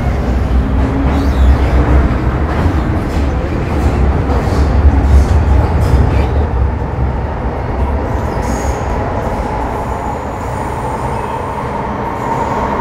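Metro Cammell M-Train electric multiple unit with GEC GTO chopper control running through a tunnel, heard from inside the car. A heavy low rumble of wheels and motors carries a steady high whine that grows louder in the last few seconds.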